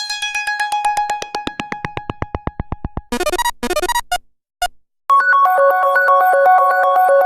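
Stock Android phone tones played one after another: a rapid pulsing electronic tone that dies away about three seconds in, then two short electronic chime figures and a single blip, then a new synth melody starting about five seconds in.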